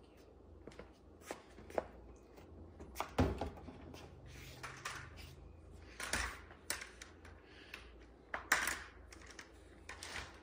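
Scattered knocks, clicks and rustles of someone moving about and handling a pair of aluminium crutches, with the strongest knocks about three, six and eight and a half seconds in.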